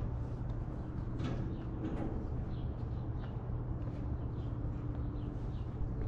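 Outdoor ambience: small birds chirping in short, scattered calls over a steady low hum.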